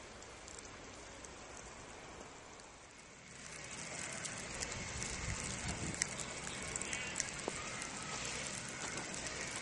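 Blizzard ambience: wind rushing over the camera microphone with an even hiss and scattered crackles. It gets louder and rumblier after a cut about three seconds in.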